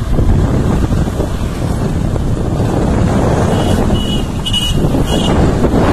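Steady low rush of wind on the microphone and road noise from a vehicle travelling along a road. About three and a half to five seconds in there are a few short, high beeps.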